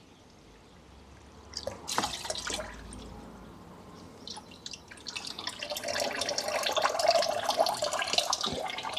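Filtered water from a deionising water filter running and splashing into a container, with a brief clatter about two seconds in; the splashing grows louder over the last few seconds.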